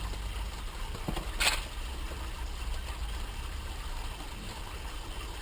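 Steady low hum, with a small click about a second in and a short scratchy rustle just after it.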